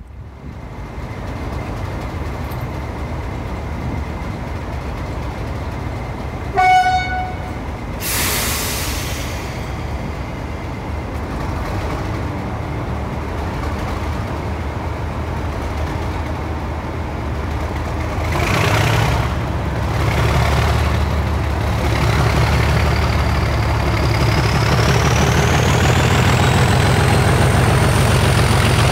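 English Electric Class 37 diesel locomotive running, with a short horn toot about six seconds in and a burst of hiss just after. From about eighteen seconds the engine opens up and grows louder, its turbocharger whistle rising in pitch.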